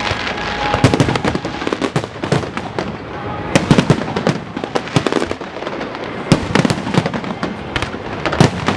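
Aerial fireworks display, shells bursting in quick succession with sharp bangs and crackle overlapping, the heaviest clusters of bangs about a second in, around three and a half to four seconds in, and again after six seconds.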